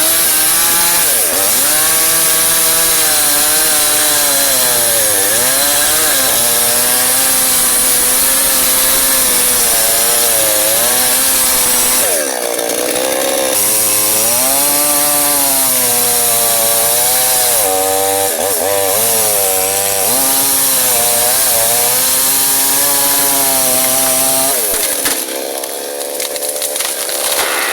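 Chainsaw engine running hard while cutting into a large tree trunk, its pitch rising and falling again and again as the chain works through the wood. Near the end the engine note drops away and the sound softens.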